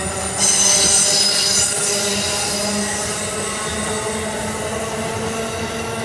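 Amtrak Northeast Regional passenger coaches rolling past, their wheels squealing with several steady high-pitched tones over the rumble. The squeal is loudest and shrillest for about a second and a half shortly after the start, then settles as the last coaches go by.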